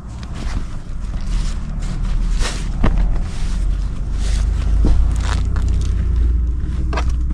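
Cloth rustling and a few light knocks as a towel and clothes are handled and pushed into a cloth laundry bag, over a steady low rumble.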